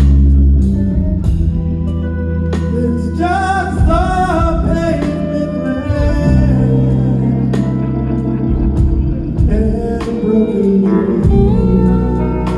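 Live rock band playing loudly: bass guitar holding deep sustained notes under drums and keyboards, with a male voice singing lines that bend and waver in pitch, strongest a few seconds in and again near the end.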